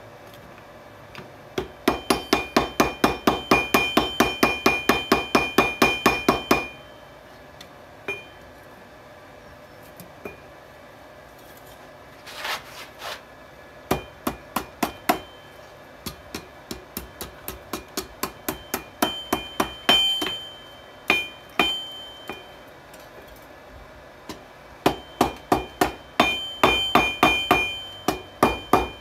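Hand hammer forging a hot railroad spike on a 66 lb anvil: quick runs of blows, about four or five a second, each with a ringing anvil tone, broken by pauses and single strikes.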